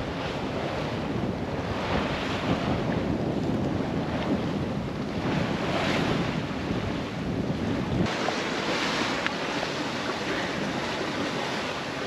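Wind and waves rushing past a sailboat's hull as it sails through a rough sea, with wind buffeting the microphone. The deep wind rumble eases about two thirds of the way in.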